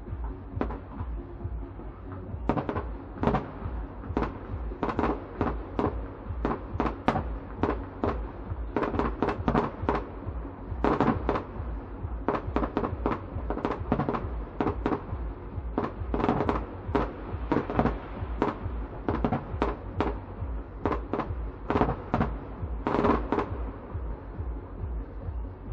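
Fireworks display: aerial shells bursting in quick, irregular succession, dozens of sharp bangs, often several a second.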